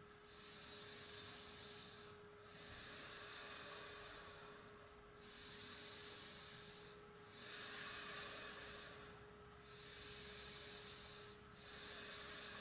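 Faint, even breathing during an abdominal breathing exercise: soft airy breaths that swell and ease about every two seconds, over a faint steady hum.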